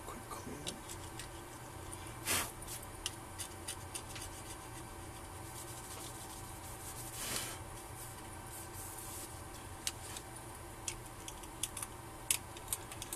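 Handling noises from a laptop battery pack being turned over in the hands: faint plastic clicks and rubbing, with two short hissing swells, about two seconds in and again about seven seconds in, over a steady low hum.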